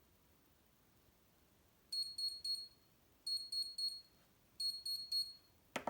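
Homemade ESP8266 kitchen timer's buzzer sounding its alarm. It plays three groups of three short, high-pitched beeps about a second and a half apart, and a sharp click comes near the end.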